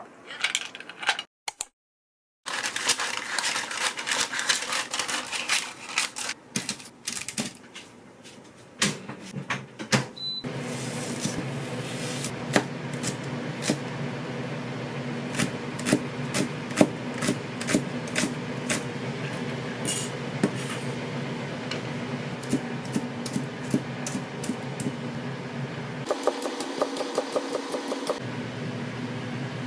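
Kitchen knife chopping vegetables on a cutting board: irregular knocks over a steady low hum, with a rapid run of quick strokes near the end.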